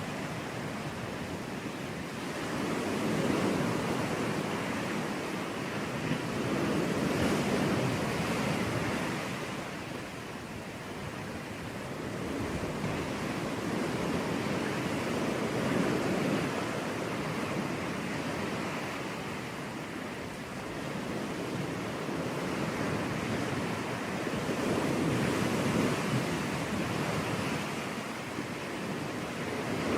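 Sea waves breaking and washing up on a beach, the surf swelling and fading in slow surges every few seconds.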